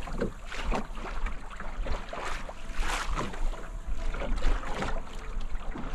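Choppy waves slapping and splashing against the hull of a wooden sailing canoe under way, in irregular surges, with wind buffeting the microphone.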